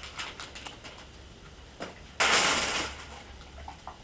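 Handling of plastic-wrapped monitor stand parts: a run of light clicks at the start, then a loud rustle lasting under a second about two seconds in, and a few soft ticks near the end.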